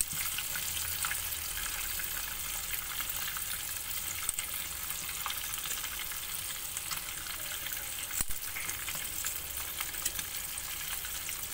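Small tilapia deep-frying in oil in a pan on a gas burner: a steady sizzle with small crackles, and one light knock about eight seconds in.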